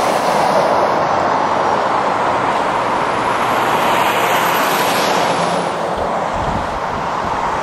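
Road traffic passing: a steady rush of tyres and engines from lorries and cars, with a faint high whine rising and falling midway.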